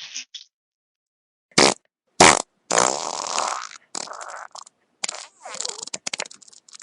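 Wet fart sound effect played repeatedly. After about a second and a half of silence come two short blasts, then a longer sputtering one, then several shorter sputtering ones in quick succession.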